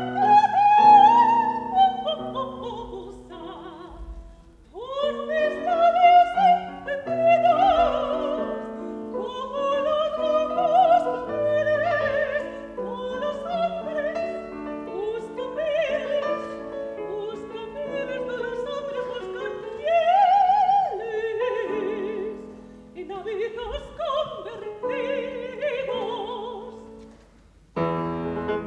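A classically trained soprano singing in operatic style, accompanied by a grand piano. She sings phrases of held, wavering notes, with a brief pause between phrases about four seconds in and another near the end.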